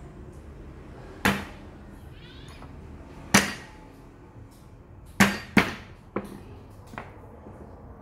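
Cleaver striking a thick wooden chopping block as garlic cloves are crushed: about six sharp whacks spaced a second or two apart, two in quick succession around the middle, the last two fainter.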